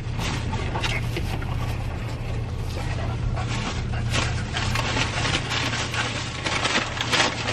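An excited bulldog panting hard, over the steady low hum of an idling car and the crunchy chewing of a crispy fried chicken sandwich.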